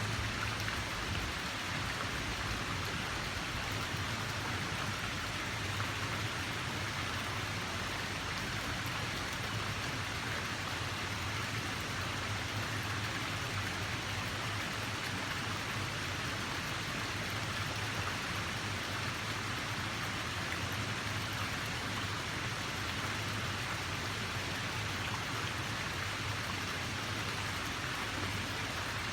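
Steady, unbroken splashing hiss of water, with a low even rumble beneath it.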